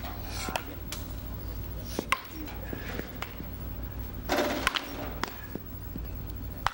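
Several sharp cracks of wooden baseball bats, at irregular intervals, with voices in the background.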